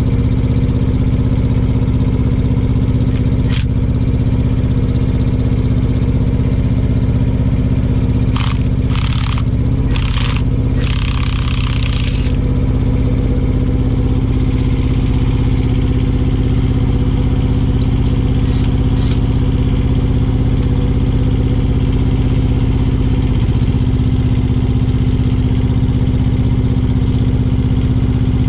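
Semi-truck's diesel engine idling steadily, with a few short sharp noises and a brief hiss-like burst between about eight and twelve seconds in.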